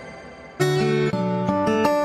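Background music: one tune fades out, and about half a second in a new piece starts abruptly with held chords that change every fraction of a second.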